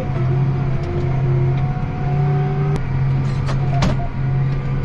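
John Deere 8270R tractor's six-cylinder diesel engine running steadily, heard from inside the cab, with a few short clicks, the loudest near the end.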